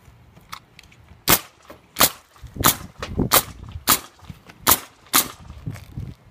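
Pneumatic coil roofing nailer firing nails into roof shingles: about seven sharp shots, roughly one every half to three-quarters of a second, starting about a second in.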